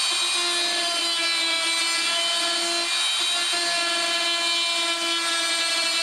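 Power tool running steadily as it cuts through drywall, with a constant high-pitched motor whine and a rasping cutting noise.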